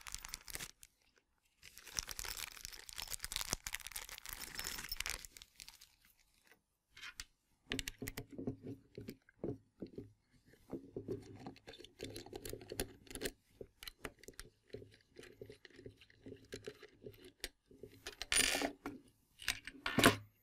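Hands working with the transmitter's accessories bag and its small metal parts: a crinkly rustle of the bag early on, then many small clicks and light metallic taps of machine screws and hex keys being picked out and handled. There are two louder handling noises near the end.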